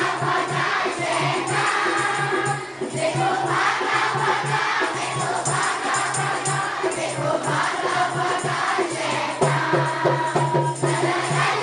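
A large crowd of schoolchildren singing together in unison, an action song, over a steady beat.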